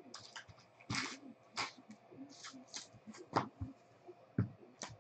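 Hands handling trading cards and card boxes on a table: a series of soft swishes and scrapes with a few light taps.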